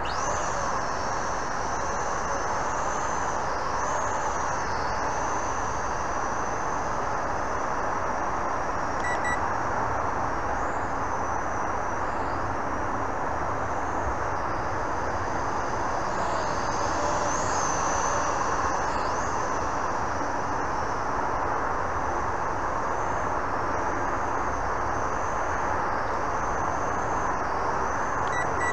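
Visuo X809HW toy quadcopter's motors and propellers spinning up at takeoff, then whining as it flies, the pitch wavering up and down with the throttle. A steady rushing noise runs underneath.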